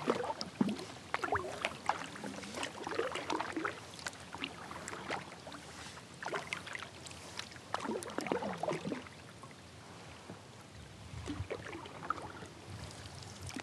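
Kayak paddle strokes: the blades dipping and pulling through the water in an uneven rhythm, with splashing and dripping water between strokes.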